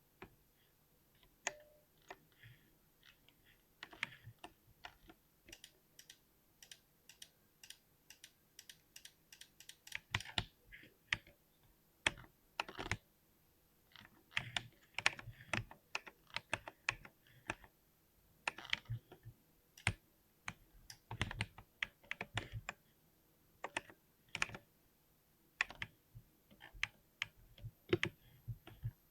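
Typing on a mechanical keyboard with linear switches: sharp keystroke clicks in irregular runs. A slow, even run of single keystrokes gives way to faster, denser bursts of typing after about ten seconds.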